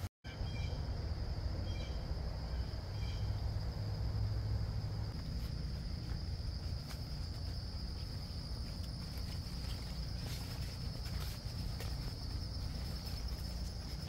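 Insects trilling steadily in a high chorus, over a low rumble and occasional faint clicks, with a few short chirps in the first few seconds.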